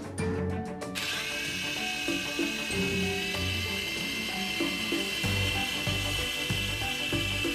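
Background music with a steady bass beat, with a steady high-pitched electric whine setting in about a second in: the small rotor motor of a mini infrared remote control helicopter running.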